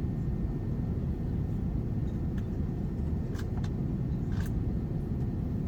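Steady low rumble of an Airbus A380's engines and airflow heard inside the passenger cabin, with a few faint clicks in the middle.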